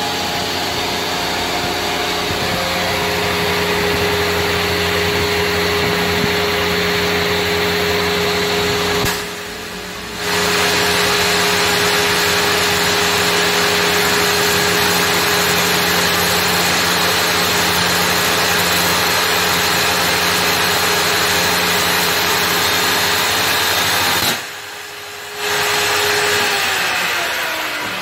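Table saw motor running at full speed, spinning a paper disc fitted in place of the blade, as a piece of pine is pushed into it: a steady whine over a rushing noise. It drops off abruptly twice for about a second, and near the end it winds down, falling in pitch.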